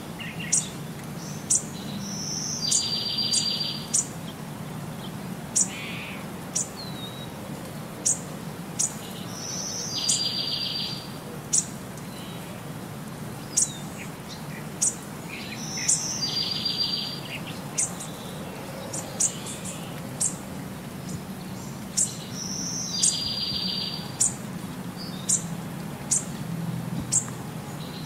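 Looped birdsong ambience: quick high chirps throughout, and a buzzy trill about a second long that repeats in the same form roughly every seven seconds, over a low steady hum.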